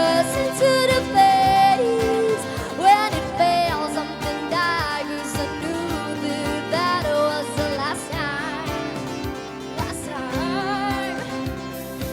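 Live street performance: a girl's voice singing wordless held notes and runs with vibrato, sliding between pitches, over steady instrumental backing.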